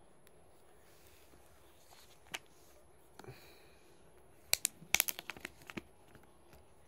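Fingers picking at and handling a Sony Xperia XZ smartphone and the protective plastic film on its back: a few isolated clicks, then a burst of sharp crinkling crackles and clicks about four and a half to six seconds in.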